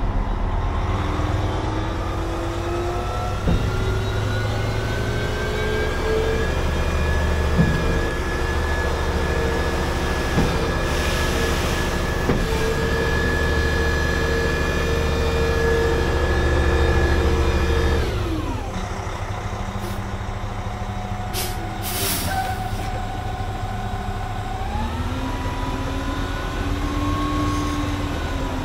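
International HX620 dump truck's diesel engine held at raised revs on cruise to drive the PTO hydraulic pump while the dump body is being lifted. The pitch climbs over the first few seconds, holds steady, then drops sharply about two-thirds of the way in. Two short air hisses follow, and the revs rise slightly again near the end.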